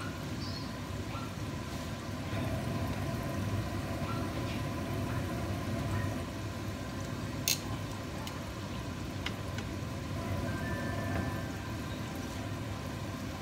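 Spring rolls deep-frying in a pan of hot oil, a steady sizzle and bubbling, with metal tongs clicking against the pan now and then; the sharpest click comes about seven and a half seconds in.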